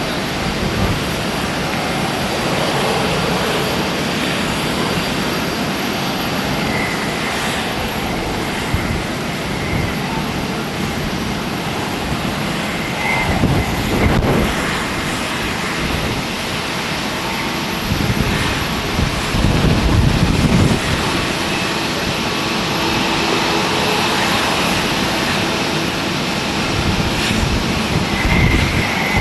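Jet airliner engines at full takeoff thrust: a loud, steady jet noise with a low rumble that swells and fades as the aircraft climbs out.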